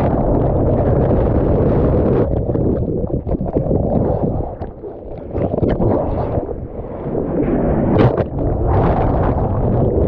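Strong wind buffeting the microphone, mixed with seawater sloshing and splashing around a surfer in the water, with a sharp splash about eight seconds in.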